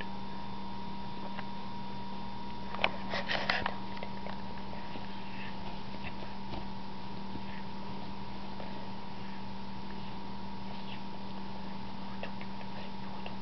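Steady electrical hum with two constant tones, one low and one higher. About three seconds in comes a short flurry of sharp scratchy clicks, the loudest moment, and faint scattered ticks follow.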